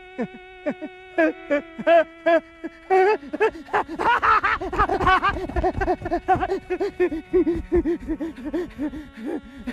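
A man laughing in quick repeated 'ha' bursts, a few short chuckles at first and then a long unbroken run of laughter from about three seconds in, over a steady held drone that drops in pitch twice.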